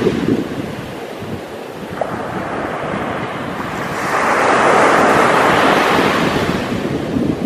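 Sea waves washing on the shore: the surf eases off, then swells up again about halfway through as the next wave breaks.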